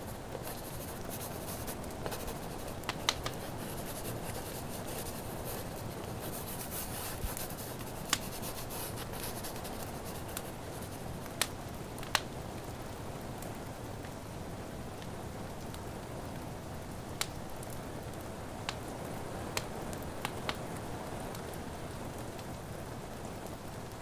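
Mixed library ambience: a steady bed of rain and a crackling wood fire, with sharp crackles popping now and then. Stretches of scratchy pen-on-paper writing come in a second or two in and again around seven seconds in.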